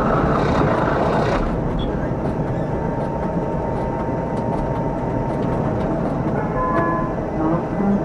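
Tram running along its rails, heard from inside the driver's cab: a steady rumble of wheels and running gear, with a hiss in the first second or so and a brief high whine near the end.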